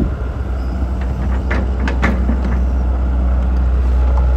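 Tracked excavator's diesel engine running with a steady low rumble, with a few short clicks about one and a half to two seconds in.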